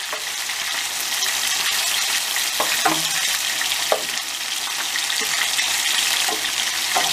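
Meatballs frying in oil and bread slices toasting in a pan: a steady sizzle. A few light knocks come as a wooden spatula turns the bread, around three and four seconds in and again near the end.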